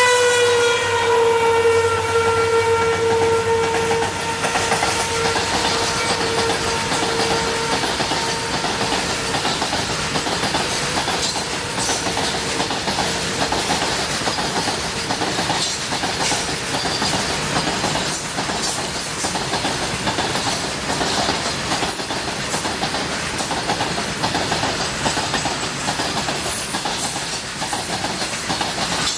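WDG-4 diesel locomotive's horn holding one long blast that sags slightly in pitch and fades away over the first several seconds. After that comes the steady rumble of the train rolling past, with the wheels clattering over rail joints in an even rhythm.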